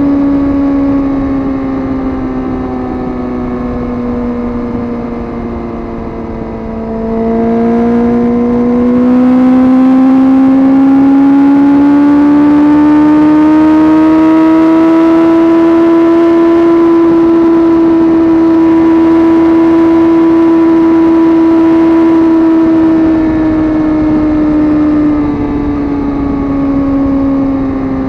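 Suzuki GSX-R sportbike engine under way, a single continuous engine note. It sinks a little at first, rises and grows louder as the throttle opens about seven seconds in, holds a steady higher pitch for several seconds, then eases back off near the end.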